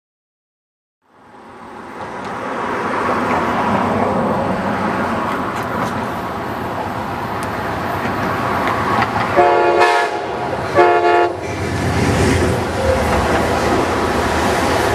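Amtrak passenger train coming in, its diesel locomotive and wheels on the rails building from about a second in. The locomotive sounds two short horn blasts, then its passenger cars run by close, with a heavy rumble.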